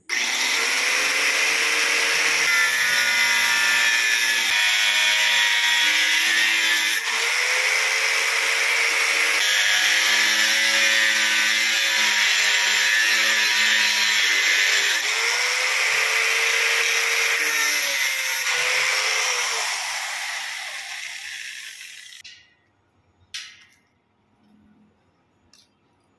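Angle grinder cutting through steel: a loud, steady whine and grinding hiss whose motor note dips and recovers as the disc bites into the metal. Near the end the grinder is switched off and winds down, followed by a single click.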